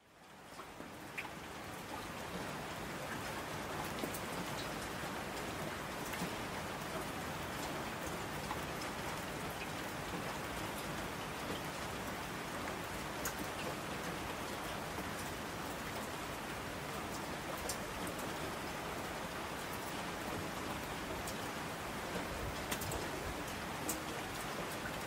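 Steady rain falling, with scattered individual drops tapping sharply through it; it fades in from silence over the first second or two.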